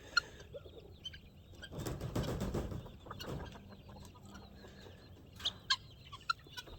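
A flock of chickens clucking softly, with a few short sharp calls near the end and a louder rustling stretch about two seconds in.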